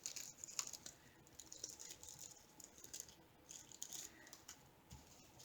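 Faint crinkling and small ticks of hands handling plastic packaging and tiny metal craft parts, in short irregular bursts.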